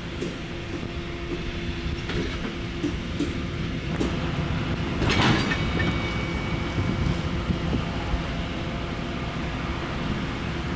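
Passenger train cars rolling slowly past: a steady low rumble of steel wheels on the rails, with scattered sharp clicks and one louder clunk about five seconds in.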